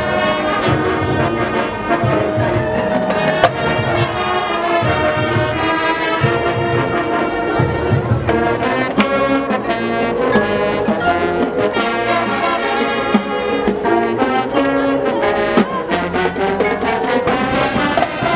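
Marching band playing: brass section of trombones and trumpets holding and moving through sustained chords, with drumline percussion hitting in rhythm.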